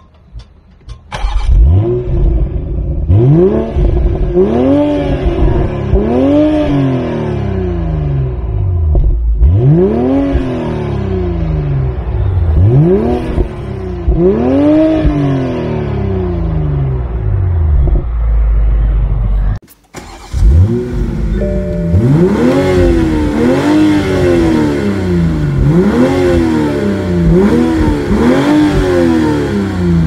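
Toyota GR Supra RZ's 3.0-litre turbocharged straight-six firing up about a second in, then revved repeatedly while parked, each blip rising and falling back to idle, heard from behind the exhaust tailpipes. After a brief break about two-thirds through, it is revved again in quicker, more closely spaced blips.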